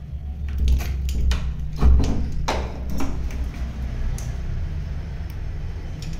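Metal barrel bolt on a door being slid open: a quick run of sharp metallic clicks and knocks in the first three seconds, loudest about two seconds in, over a low rumble.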